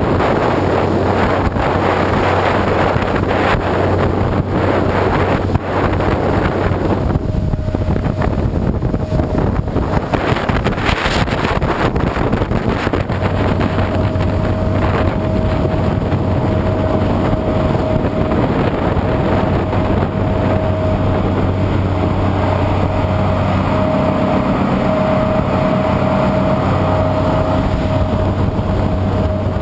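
Motorboat engines running steadily under way, with wind buffeting the microphone. A steady higher whine joins the engine hum about seven seconds in.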